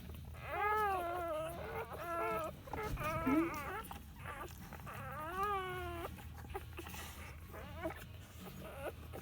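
Newborn puppies crying and squealing: a series of high, wavering cries, several drawn out to about a second, with shorter ones in between.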